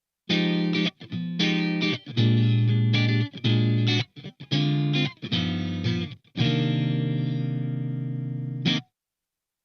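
Soloking MS-1 Classic MK.II electric guitar playing chords through an overdriven amp: a run of short, choppy stabs, then one chord left to ring for about two seconds before it is cut off sharply.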